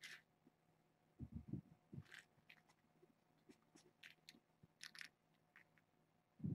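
Faint sounds of kittens scampering and pouncing on a carpeted floor: soft paw thumps, a cluster about a second in and another near the end, among light scratchy scuffs and clicks.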